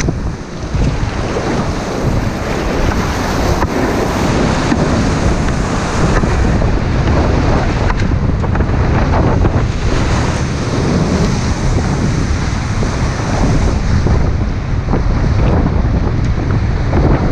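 Whitewater rapids rushing and splashing around a kayak on a steep creek, with water washing over the boat and camera, and wind buffeting the microphone. A loud, steady roar.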